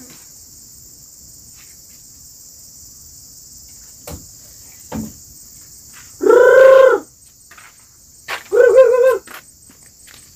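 Crickets and other insects keep up a steady high drone. It is broken twice by two loud hooting calls, each under a second long, about six and eight and a half seconds in, from an owl (burung pungguk).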